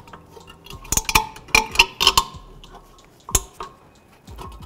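Pliers clicking and clinking on a parking brake shoe's coiled hold-down spring and its hook as the spring is pushed down and twisted to unhook it: a string of irregular, sharp metallic clicks, some with a brief ring.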